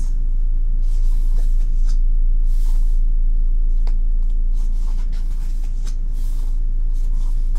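Glossy photobook pages being turned and handled, a few soft paper swishes with light ticks, over a steady low hum.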